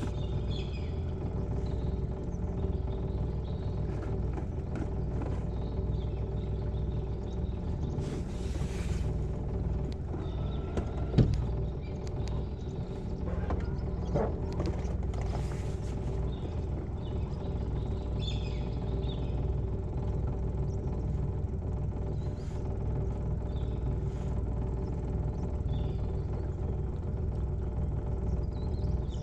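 Small outboard motor running steadily at trolling speed, a constant low hum and rumble, with a few light knocks from the boat, the loudest about a third of the way through.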